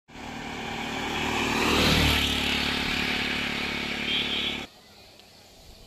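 Motorcycle engine running as it passes close by, loudest about two seconds in. It cuts off suddenly about a second before the end, leaving faint background.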